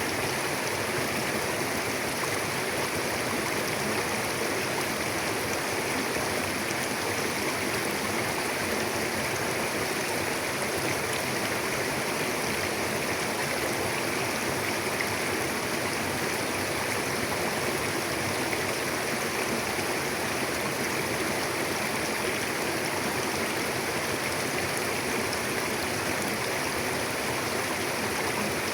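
Mountain river flowing steadily over rocks, a constant rushing of water.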